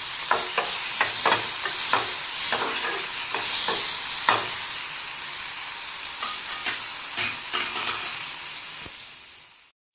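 Tomatoes and green chillies sizzling in hot oil in a kadai, with a flat metal spatula scraping and tapping against the pan as they are stirred. The spatula clicks come often for the first few seconds, thin out after about halfway, and the sizzle fades and cuts off just before the end.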